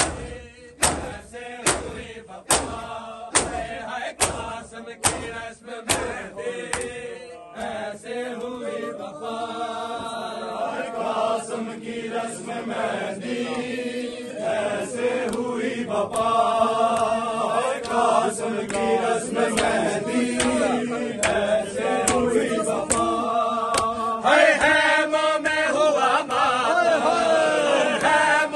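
A crowd of men chanting a Shia noha together, with sharp unison chest-beating (matam) slaps about every 0.8 s for the first seven seconds. The slaps then fade and the massed chanting carries on, growing louder twice.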